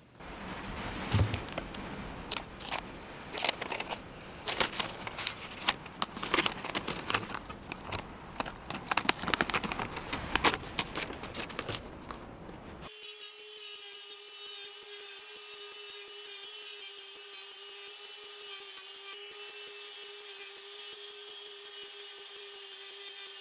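Rustling and crinkling of sheeting being handled, with many sharp clicks. About thirteen seconds in this cuts abruptly to a Dremel rotary tool running steadily at one even pitch, its felt wheel working spray paint off the raised lettering of a copper fire extinguisher.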